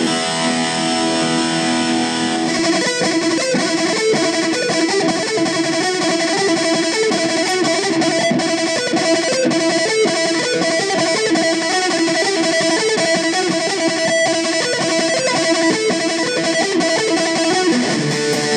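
Dean Razorback electric guitar, freshly restrung with 9–42 Ernie Ball Slinky strings, being test-played after reintonation. It opens with a few held notes, then from about two and a half seconds in breaks into a fast run of picked single notes.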